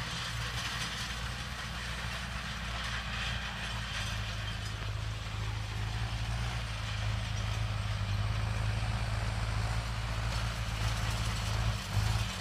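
Farm tractor's diesel engine running steadily under load as it pulls a tillage implement across a field. Its low hum grows stronger about a third of the way in as the tractor draws closer.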